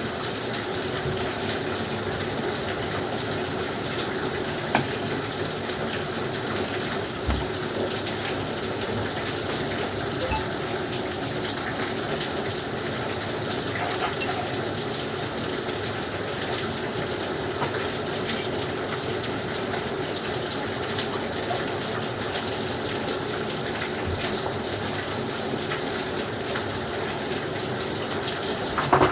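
Steady rush of falling water that goes on without a break, with a few faint clicks. Near the end there is a short knock and the rush drops away suddenly.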